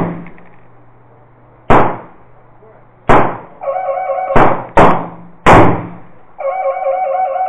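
AR-15 pistol firing five single shots at uneven spacing, two of them less than half a second apart, each sharp report followed by a short fading tail.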